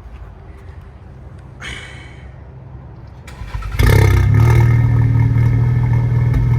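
A Mk7 Volkswagen's turbocharged four-cylinder, fitted with a catless downpipe and a 3-inch ECS valved exhaust with the valves open, warm-started: it catches loudly about four seconds in, flares briefly, and settles into a deep, steady idle.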